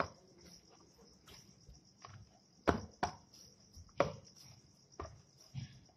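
Soft pani puri dough being pressed and knocked about in its bowl after kneading: about six dull thumps, irregular and mostly in the second half. A steady high-pitched tone runs under them.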